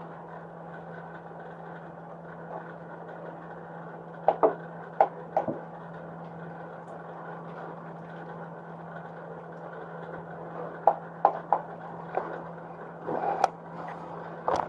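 A steady background hum, with two clusters of sharp clicks and snaps from a plastic oil-bottle cap being worked by hand: three about four to five seconds in, and more from about eleven to thirteen seconds in.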